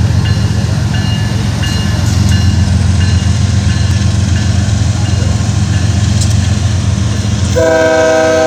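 BNSF diesel locomotives hauling a coal train past with a steady low engine rumble, while a bell rings at an even beat of about three strokes every two seconds. About seven and a half seconds in, the locomotive's multi-note air horn starts sounding a chord.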